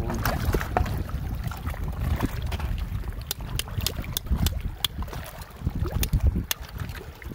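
Shallow seawater sloshing as someone wades, with wind rumbling on the microphone. In the second half come a series of sharp clicks, a steel rebar hook knocking against the shells of an oyster cluster.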